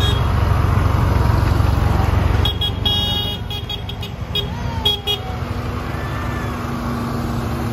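Tractor diesel engines running past at close range, a loud low rumble for the first two and a half seconds that then eases off. This is followed by a series of short, high-pitched horn toots.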